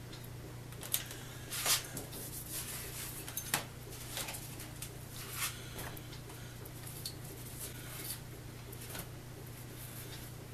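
Handling noises at a workbench: several sharp clicks and light knocks in the first few seconds, then a cloth rag rustling and scraping as it is spread and smoothed over the bench top. A steady low hum runs underneath.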